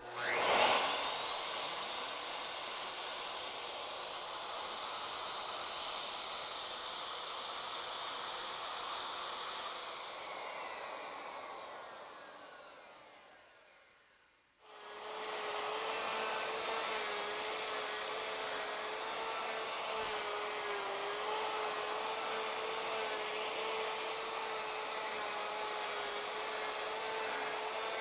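Router on a Legacy Ornamental Mill spinning up and cutting a molding profile into wood stock turned between centers, with a steady high whine. It winds down from about ten seconds in, then starts again abruptly at full speed a few seconds later and runs steadily.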